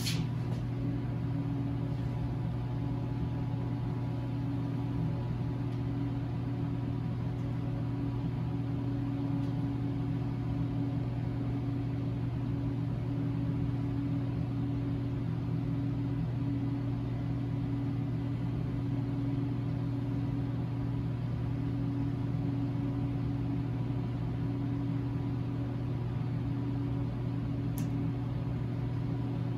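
Steady low mechanical hum of a running motor, unchanging throughout, with a short click at the very start and another near the end.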